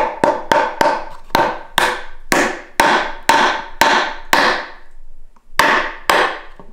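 Steel claw hammer striking the ends of wooden pegs set in a green-wood board, each blow a sharp knock with a brief ring. It strikes about a dozen times at roughly two to three blows a second, pauses near five seconds, then strikes twice more. The metal hammer's note is used to tell by ear when each peg is fully seated.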